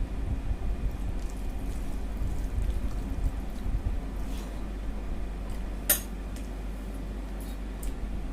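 Soft, wet sounds of someone eating rice with egg curry, with one sharp clink about six seconds in, over a steady low hum.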